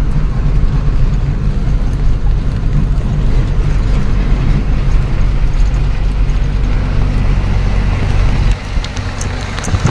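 Ashok Leyland 1214 truck's diesel engine running steadily at cruise, heard from inside the cab with road noise. Near the end the engine note drops and the sound becomes quieter.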